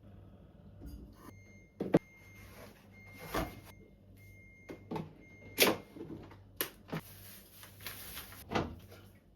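Refrigerator being emptied: items knocked down onto shelves and the counter, about six sharp thumps and clacks, with stretches of rustling between them.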